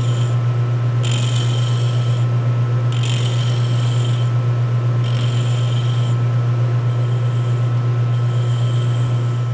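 Metal lathe running with a steady low hum while a hand-held flat steel tool is pressed against the spinning work, giving a high squeal in strokes about every two seconds that grow fainter toward the end.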